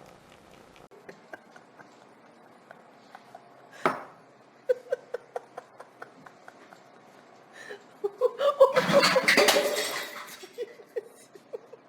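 Clinking and clattering of hard objects: a sharp knock about four seconds in, a run of light clicks just after, and a louder burst of clatter lasting about two seconds near the end.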